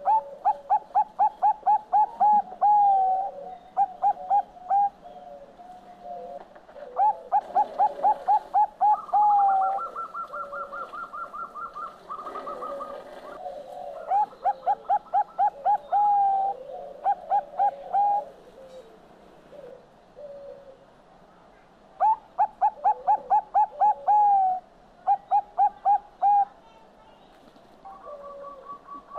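Zebra dove (Bangkok perkutut) cooing: four phrases a few seconds apart, each a fast run of short rising staccato notes ending in a longer note. Between the phrases comes a higher, faster run of notes, with faint chirps of other birds in the background.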